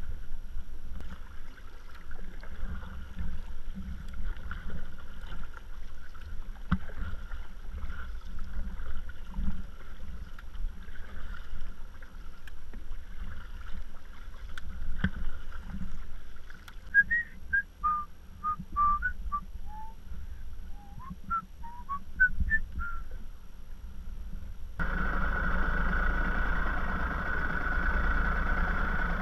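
Sea water slapping against a kayak's hull, with a steady low rumble and occasional knocks. A run of short whistled notes at varying pitch comes about two-thirds of the way through. Near the end the sound changes to a steadier, louder rush.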